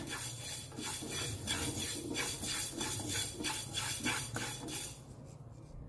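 Wooden spatula stirring fenugreek seeds as they dry-roast in a small nonstick frying pan: quick repeated scraping strokes with the seeds rattling against the pan, dying away about five seconds in.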